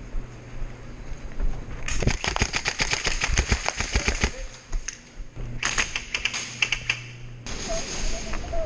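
Airsoft guns firing in rapid full-auto bursts of fast clicking shots: one burst about two seconds in that lasts a couple of seconds, then a second burst a little past the middle.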